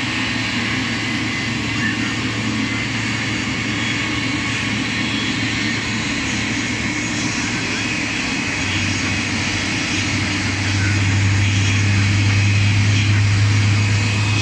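Steady jet-turbine machinery noise on an airport apron: a low drone with a faint high whine on top, getting louder about ten seconds in.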